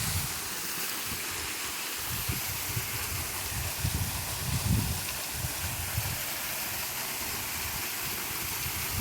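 Waterfall rushing: a steady hiss of falling water, with irregular low rumbles coming and going, strongest about halfway through.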